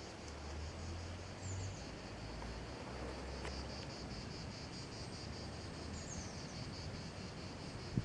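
Insects chirring: a steady, evenly pulsing high buzz, with a low rumble underneath.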